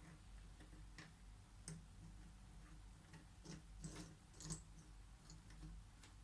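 Cardboard jigsaw puzzle pieces being handled and set down on a table: faint, irregular light clicks and taps, several close together a little past the middle.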